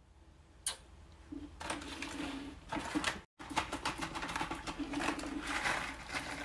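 Small decorative stones poured from a plastic bag onto the soil of a potted snake plant: rapid clicking and rattling of pebbles, with crinkling of the bag.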